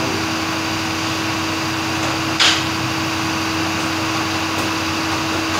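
Steady machine hum with a constant pitch under a noisy whir, like a running fan or compressor. A brief hiss about two and a half seconds in.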